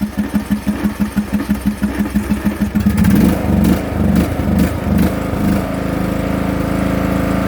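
Riding lawn mower tractor's engine running with a lumpy, pulsing beat at low speed, then throttled up about three seconds in with a few uneven surges before settling into a steady, faster drone.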